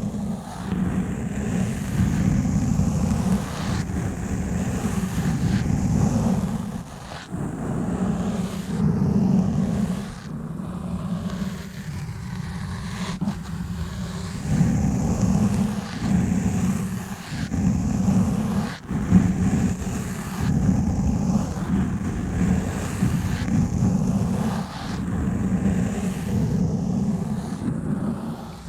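Exfoliation gloves rubbing and scratching directly on a foam-covered microphone, giving a muffled low rumble that swells with each stroke, one or two a second.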